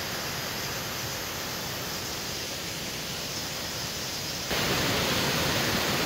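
Waterfall rushing steadily, a constant even wash of water noise that steps up louder and brighter about four and a half seconds in.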